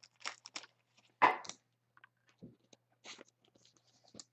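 Short, irregular crackles and rustles of trading-card packaging being handled, with one louder crackle about a second in.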